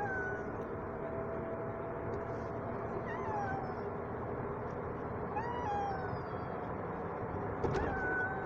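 Cat yowling and meowing in a pet carrier, four drawn-out falling cries, over the steady hum of a car on the road. It is a loud protest: he is very unhappy about being shut in the carrier.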